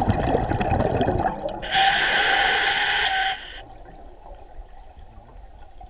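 Scuba diver breathing through a regulator underwater: a burble of exhaled bubbles for about the first second, then the hiss of an inhaled breath for about a second and a half, then near quiet.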